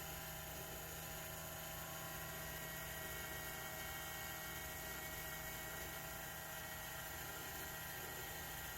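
Steady whir of a small electric motor, holding an even pitch throughout.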